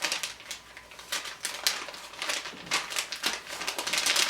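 Packaging of a fabric coaster being torn open and handled: irregular crinkling and rustling with small clicks.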